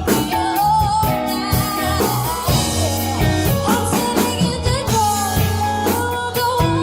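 A band playing a pop-rock song with drum kit, bass and electric guitar, and a voice singing over them.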